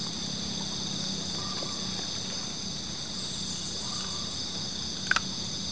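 Steady outdoor chorus of insects, several unbroken high buzzing tones at once, with one short sharp click about five seconds in.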